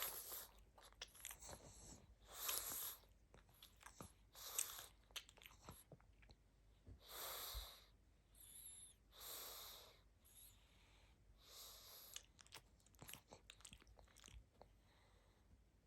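Sleeping pug snoring: faint wheezy breaths about every two seconds, with small clicks in between.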